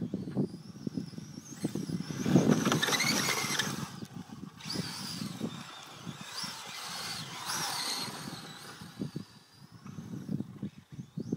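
Castle 2650 kV brushless electric motor of a Kyosho DRX RC rally car whining as it accelerates hard, loudest about two seconds in and again around seven to eight seconds, with the tyres scrabbling on loose dirt. Irregular low thumps run underneath.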